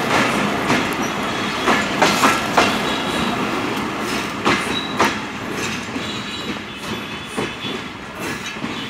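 Modhumati Express passenger coaches rolling past close by, their wheels clacking over the rail joints in quick pairs over a steady rumble. The clatter fades near the end as the last coach passes and the train draws away.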